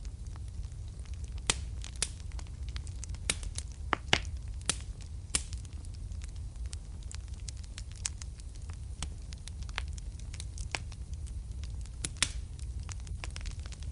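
Fireplace fire crackling: irregular sharp pops and snaps, a few louder ones about a second and a half, four seconds and twelve seconds in, over a steady low rumble.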